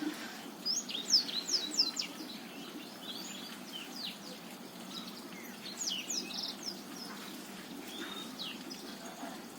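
Black-throated canary (blackthroat) singing: short phrases of quick, high, sweeping notes, given in several bursts a second or two apart, over a steady low background noise.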